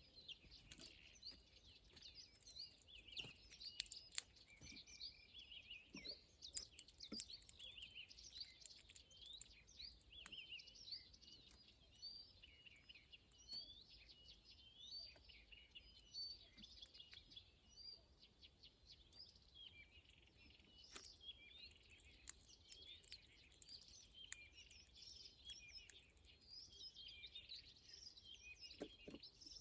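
Small songbirds chirping and twittering in a dense, overlapping chorus, faint and continuous, with a few sharp ticks scattered through it.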